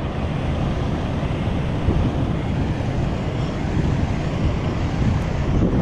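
Wind buffeting the microphone of a handheld camera: a steady, low rushing noise.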